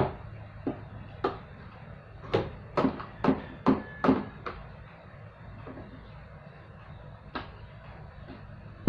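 Sharp plastic clicks and knocks from handling a flat mop and its plastic wringer bucket as the mop is drawn out and turned over. There are a couple of single knocks early, a quick run of about six between two and a half and four and a half seconds in, and one more knock near the end.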